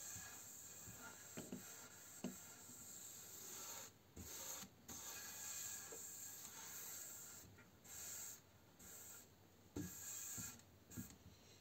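Sponge applicator pad with a stiff, scouring-pad-like face rubbing oil into a walnut board: a faint scrubbing swish in back-and-forth strokes, breaking off briefly several times.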